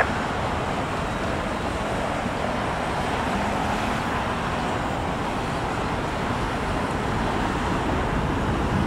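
Four-engine Airbus A340-300 jet engines at takeoff power, a steady noise that grows slightly louder near the end.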